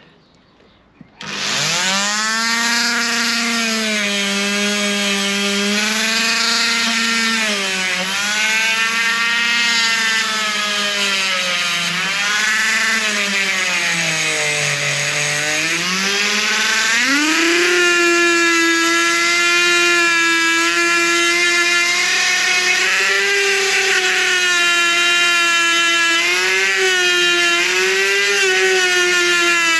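Dremel rotary tool switched on about a second in and grinding rust off the steel rear window frame of a Mercedes W201. Its whine dips in pitch again and again as it is pressed into the metal, bogs down lowest about halfway through, then runs at a higher, steadier pitch for the rest.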